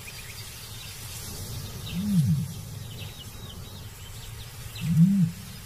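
Male ostrich booming: two short, deep hoots, one about two seconds in and another near the end, each rising then falling in pitch. Faint high chirping sits behind them. It is the throat-pouch call a male gives to signal his territory during courtship display.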